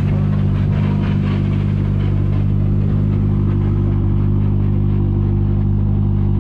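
A car engine idling steadily close by: a deep, even hum that holds one pitch, with no revving.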